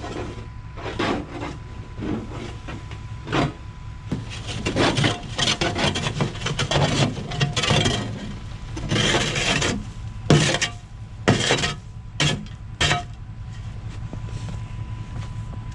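Frozen wood chips being dug and scraped loose in the raised bed of a farm dump truck: irregular scraping and rasping strokes with chips sliding and falling, over the steady low hum of the truck's idling engine. The scraping stops a little before the end, leaving the engine hum.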